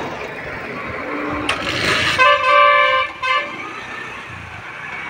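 A vehicle horn honking: one steady toot of about a second, starting about two seconds in, then a short second toot, over steady road noise.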